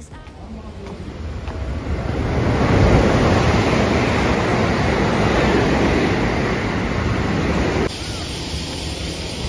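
A loud, steady rushing noise that swells over the first three seconds, then cuts abruptly to quieter outdoor street ambience about eight seconds in.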